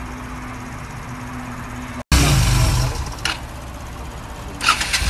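Old motorcycle engine firing on carburettor cleaner sprayed into the carb. After a steady low hum, it bursts into loud running about two seconds in, then settles to a lower, uneven idle with a few clicks.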